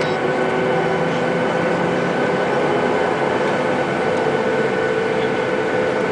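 Boeing 737-800's CFM56 jet engines at low taxi power, heard from inside the passenger cabin: a steady rush of engine and cabin noise with a constant whine.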